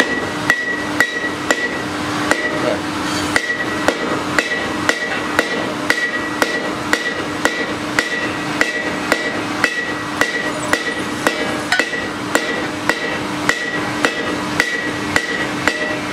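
Blacksmith's hand hammer forging a steel workpiece on an anvil: steady, even blows about twice a second, with the anvil ringing on between strikes.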